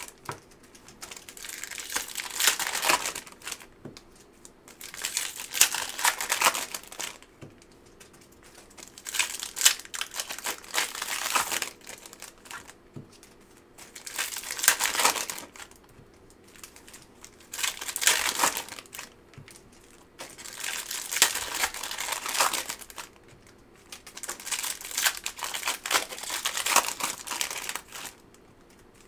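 Foil trading-card pack wrappers crinkling as they are torn open and handled, in repeated bursts every few seconds with short quiet gaps between.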